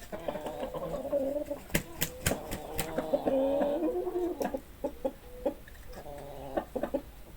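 Chickens clucking, with a longer warbling cluck about halfway through. Sharp clicks and taps are scattered among the calls.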